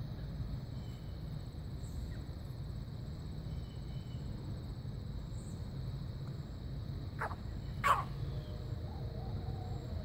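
A chicken sneezing twice, two short sharp bursts less than a second apart about seven seconds in, the second louder, over a steady low background rumble.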